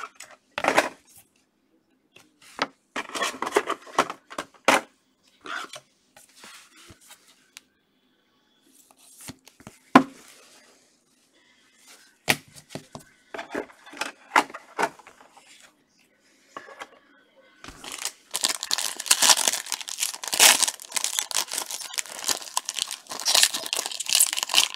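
Trading cards and plastic sleeves handled in short rustles and a few sharp clicks, then, from about eighteen seconds in, a clear plastic card-pack wrapper crinkling and tearing without a break as it is worked open. The wrapper is heavily glued.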